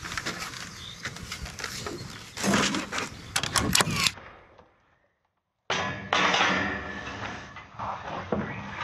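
Nail gun firing nails into a timber batten: several sharp shots and knocks in quick succession, loudest in the second half of the first four seconds. The sound then cuts out for about a second, and a steadier rough noise with a few knocks follows.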